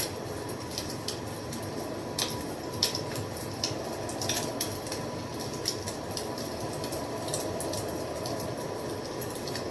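Wood fire burning, with irregular sharp crackles and pops over a steady low rushing noise.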